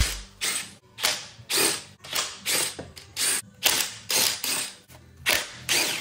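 Hand ratchet clicking in short repeated back-and-forth strokes, about two a second, while undoing the valve cover bolts on a BMW N62 V8.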